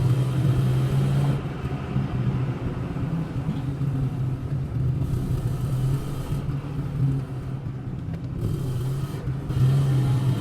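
Car engine and road noise heard from inside a moving car's cabin: a steady low drone with a rumble of tyres on the road.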